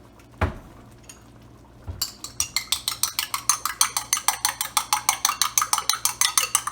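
An egg being beaten in a bowl: a utensil clinks rapidly against the bowl, about eight strokes a second, starting about two seconds in. A single knock comes just before, about half a second in.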